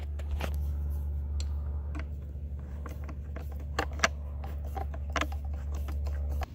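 Irregular clicks and taps of a nut driver on a metal bolt and the plastic pedestal of a pool pump, over a steady low hum that cuts off near the end.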